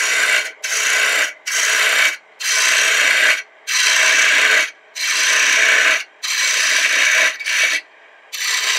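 A turning tool cutting into the end of a wooden blank spinning on a wood lathe, facing it off and shaping it. The cuts come as a series of passes, each about a second long, with short breaks between them.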